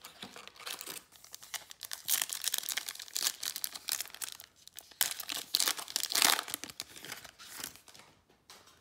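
Trading-card pack wrapper being torn open and crinkled by hand: dense crackling of thin packaging. It is loudest about two seconds in and again from a sudden tear about five seconds in, then fades out near the end.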